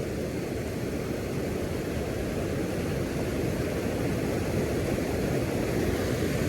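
Steady rush of water pouring over a river dam, a low, even noise that grows slightly louder.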